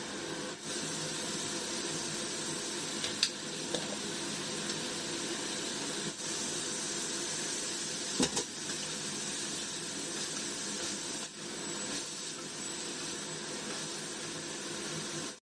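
Vegetables and chicken sizzling steadily in frying pans on a gas stove, with a few short clicks of a wooden spatula against a pan.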